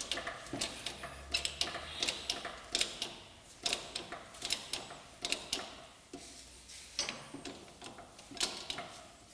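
Hydraulic bottle jack being pumped by its handle under a rear hub, giving irregular sharp metallic clicks and knocks about once or twice a second as it lifts the rear suspension up to ride height.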